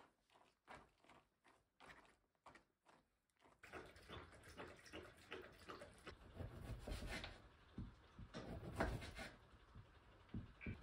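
A spoon stirring wet food into kibble in a silicone dog bowl, a few scattered soft clicks. From about four seconds in, a dog eating from the bowl, a dense run of chewing and licking with the bowl knocking, loudest near the end.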